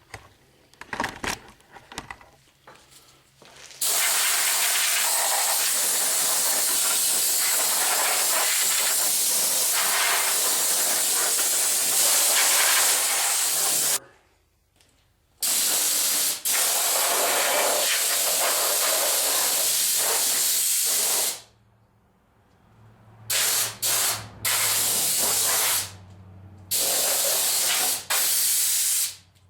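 Compressed air blowing standing water out of a pickup's frame rails, a loud steady hiss. A long blast starts about four seconds in and runs to about fourteen seconds, a second follows after a short break, and a string of short bursts comes near the end.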